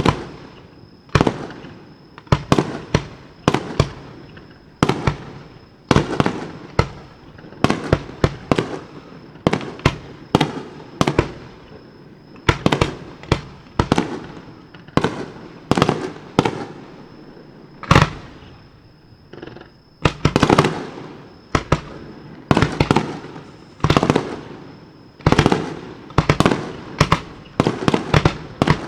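Aerial firework shells bursting in quick succession, roughly one or two booms a second, each followed by a rumbling, echoing tail.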